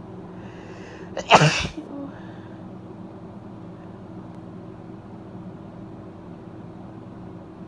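A woman sneezes once, about a second in, after a short in-breath, over a steady low hum in the room.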